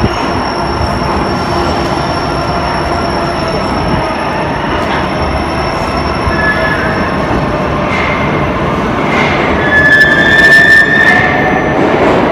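Metro train pulling into an underground station and braking to a stop: a steady rumble of wheels on rails with a thin high whine, and squealing from about six seconds in as it slows, loudest near the end.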